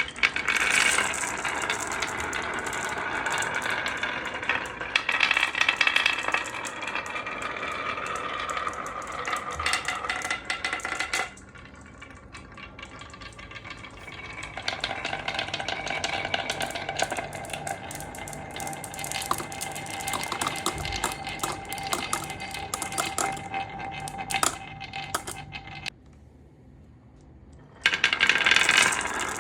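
Marbles rolling and clattering through a marble run: a steady stream of rattling and clicking as they roll along the tracks and knock together, with a ringing rolling hum. It drops quieter for a few seconds midway and nearly stops for about two seconds near the end before the clatter returns loudly.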